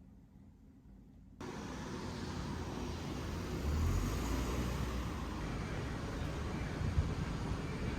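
Near quiet, then about a second and a half in, steady city street noise with car traffic rumbling by.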